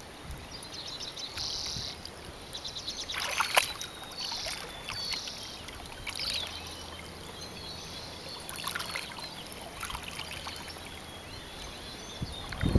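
Shallow river water running and rippling, broken by sharp splashes as a large brown dog paws and snaps at the water; the biggest splash comes about three and a half seconds in, with smaller ones later. A few short, high bird chirps sound over the water in the first few seconds.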